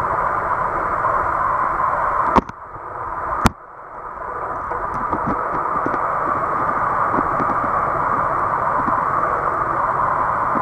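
Steady muffled rushing of water in a rocky tide pool as the tide comes in. Two sharp clicks come about a second apart, early in the clip; between them the rushing drops away, then swells back to its steady level.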